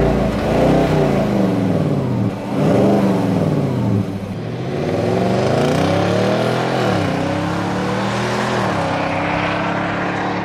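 Nissan Titan's V8 engine accelerating hard away from the listener, its pitch climbing and dropping back at each upshift, several times in a row.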